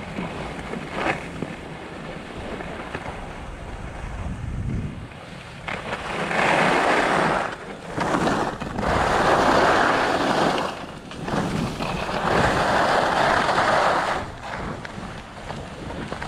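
Skis sliding and scraping over packed snow, with wind rumbling on the microphone. From about six seconds in there are several long, louder scrapes, a few seconds each, as the skis turn through chopped-up piste snow.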